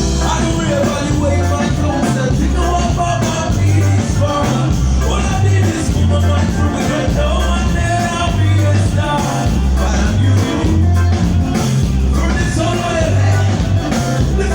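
Loud band music over a PA system: a steady groove with a prominent bass line of repeating notes and a melody on top.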